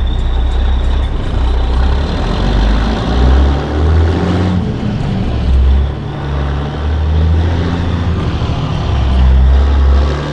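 The 1984 Peterbilt 362 cabover's Caterpillar 3406B diesel engine is running while the truck is driven, heard from inside the cab. The low engine note swells and drops several times, loudest near the end.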